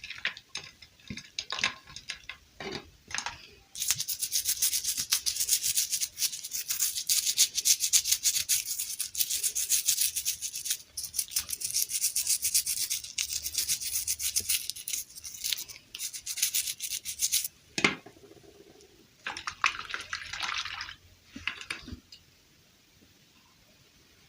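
Fast, even rubbing or scratching strokes on a surface, many a second, running for about fourteen seconds. They follow a few scattered clicks and rustles, and a sharp click near the end gives way to two shorter bouts of the same rubbing.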